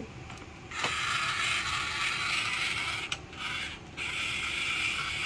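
Toy battery drill from a take-apart race car kit whirring as it drives a plastic bolt into the car's wheel: it runs for about two seconds, stops briefly, then starts again.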